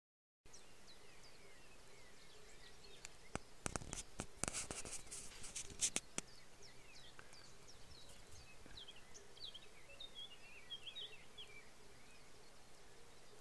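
Small birds chirping in short, quick calls, thickest about ten seconds in, over a faint rural background. From about three and a half to six seconds in comes a run of sharp clicks and rustling, the loudest sounds here.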